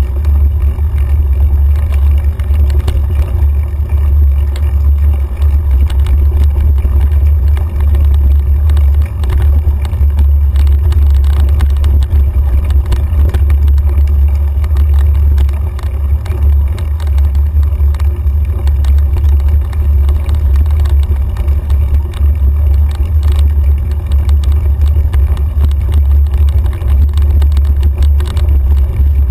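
Deep, steady rumble of wind and trail vibration on a handlebar-mounted camera as a mountain bike rides a dirt forest trail, with scattered rattles and clicks from the bike over the ground.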